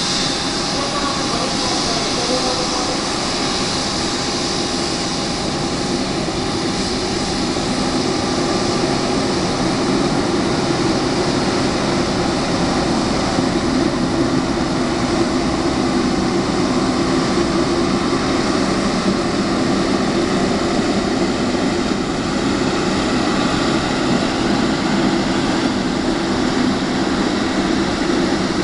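Jet engines of a Boeing 747 freighter running at taxi power: a steady rumble with a high whine, getting a little louder after about eight seconds as the aircraft rolls by.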